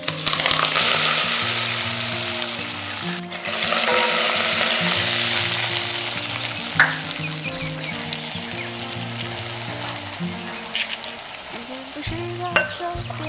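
Hot oil poured over chili flakes, whole spices and scallions in a bowl, sizzling and bubbling hard as Sichuan chili oil is made. The hiss starts sharply, breaks briefly about three seconds in, surges again, then slowly dies down.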